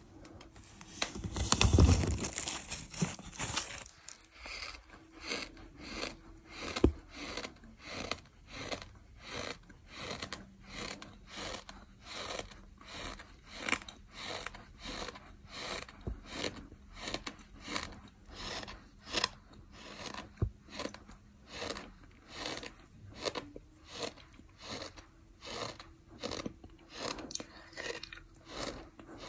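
A person chewing a mouthful of fine sand, a gritty crunching. There is a louder burst in the first few seconds, then steady chews about twice a second.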